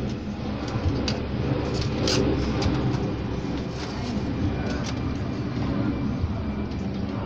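Steady low mechanical hum or rumble, with scattered light clicks and taps over it.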